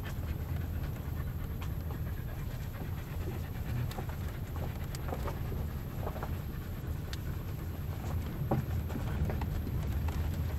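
A dog panting inside a car cabin over the steady low rumble of the car rolling along a dirt road, with scattered light ticks and rattles.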